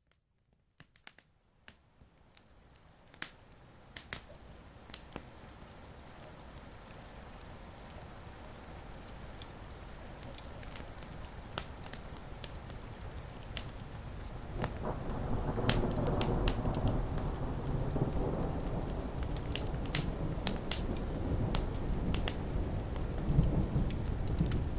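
Wood fire crackling with sharp scattered pops as the sound fades in from silence. A long, low thunder rumble builds and swells from about two-thirds of the way in.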